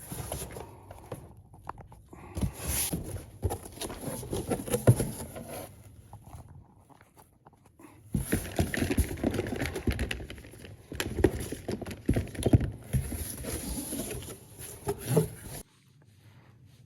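Rummaging through boxes of plastic phone cases and repair parts: rapid clattering and rustling, in two stretches with a pause about six seconds in. The sound cuts off suddenly near the end.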